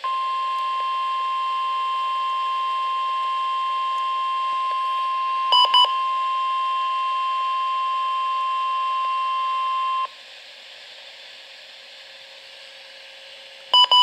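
NOAA Weather Radio warning alarm tone, a steady single tone of about 1050 Hz through a Midland weather radio's speaker, lasting about ten seconds and then cutting off; it signals that an emergency alert, here a Severe Thunderstorm Watch, follows. The radio's own short beeps sound twice about halfway through and again near the end.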